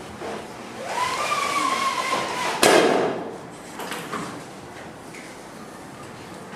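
A squeak lasting over a second, slightly falling in pitch, ends in a sharp knock, the loudest sound. A lighter knock follows about a second later.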